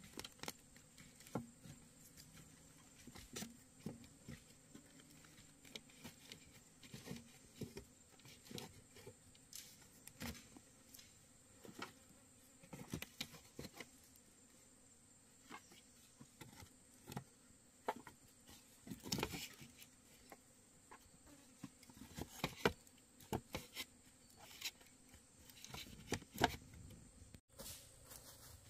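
Faint, irregular light taps and clicks scattered throughout, over a quiet background.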